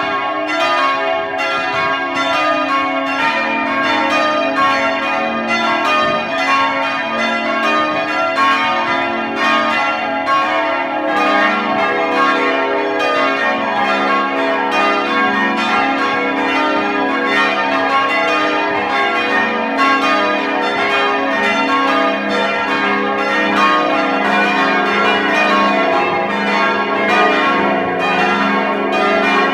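Swinging church bells of St. Stephan pealing together, heard close up beside the big Stephanus bell in the bell chamber: a steady run of overlapping strikes, each ringing on in deep, sustained tones. The recording is damped, so the ring comes through somewhat muffled.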